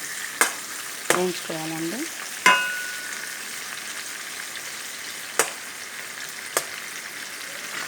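Cut tomatoes sizzling steadily as they fry in oil in a pan, with a few sharp knocks of the stirring utensil against the pan, one of them ringing briefly about two and a half seconds in.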